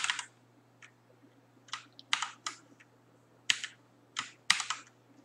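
Typing on a computer keyboard: short runs of keystrokes separated by pauses. A faint low steady hum lies under them.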